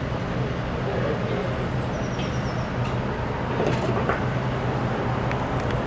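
Steady low drone of heavy site machinery engines running, with a few faint high chirps about two seconds in and a couple of light knocks later.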